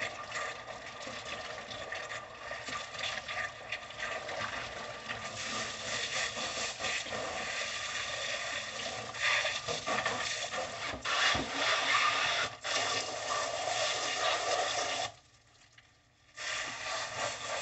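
Garden hose spraying water into and over raw pig intestines as they are rinsed out, a steady hiss of spray. It cuts out for about a second near the end, then starts again.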